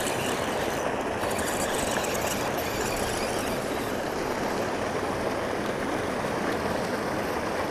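Water gushing steadily from a spillway culvert pipe and splashing into the pool below.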